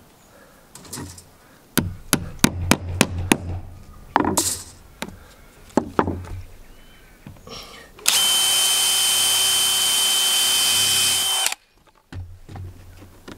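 A quick run of about eight sharp knocks, then a DeWalt cordless drill runs at a steady, even speed for about three and a half seconds and stops abruptly, pre-drilling a nail hole in a new deck board.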